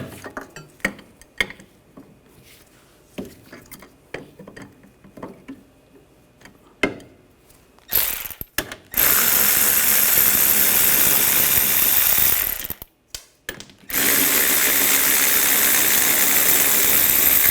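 Power tool spinning a 17mm socket in two loud, steady runs of about four seconds each, backing out the two brake caliper bracket bolts. Faint clicks of the socket being fitted come first.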